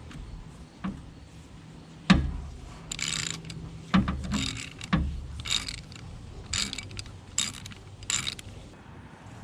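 Socket ratchet clicking in several short strokes, with a few sharp clunks of tools against metal, while spark plugs are worked on a 2006 Jeep Wrangler engine. The loudest clunk comes about two seconds in.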